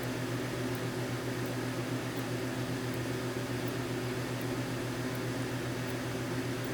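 A steady low electrical hum with an even hiss over it, like a fan or small motor running in the room, unchanging throughout.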